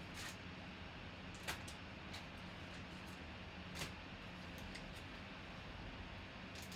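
Faint steady low hum of room tone with a few scattered light clicks and taps. The last of them come as hands pick up a trading card in a plastic holder.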